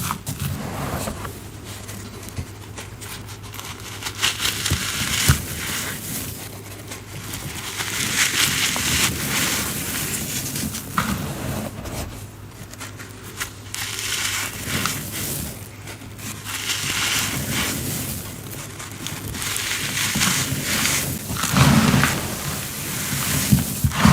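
Compacted cornstarch being crushed and crunched, a dry crackling crunch in repeated waves of a few seconds each, loudest near the end.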